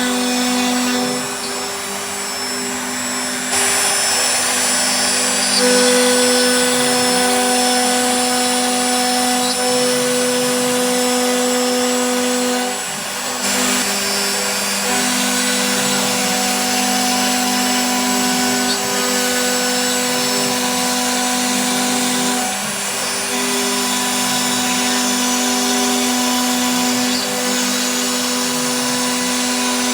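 CNC router spindle running as its bit cuts a 2D lotus design into wood: a steady whine with several held tones, whose pitch and level shift briefly every several seconds as the cut loads the spindle.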